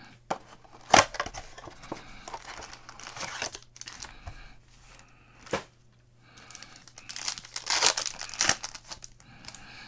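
Panini Prism blaster box of football cards being torn open, then a foil card pack's wrapper torn and crinkled. A sharp crack comes about a second in, and the loudest crinkling comes near the end.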